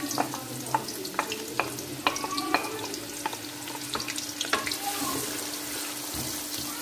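Sliced onions sizzling in hot oil in a metal pot, a steady hiss with frequent crackles and the clicks and scrapes of a spatula stirring them against the pot.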